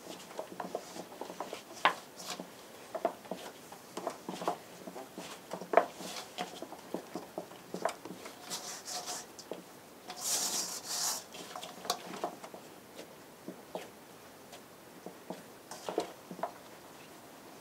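Hands kneading bread dough in a metal bowl: irregular soft pushes and squishes with light knocks against the bowl. About ten seconds in there is a brief, denser rubbing hiss.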